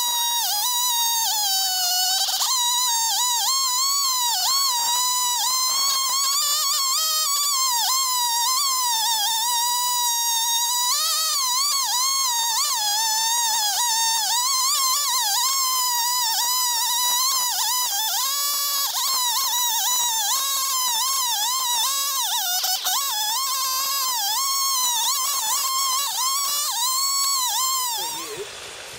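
Chainsaw in a chainsaw mill, fitted with a tungsten-tipped chain, running flat out while ripping a chestnut log lengthwise; its high whine wavers up and down steadily as the load on the chain changes. The sound drops away about a second before the end.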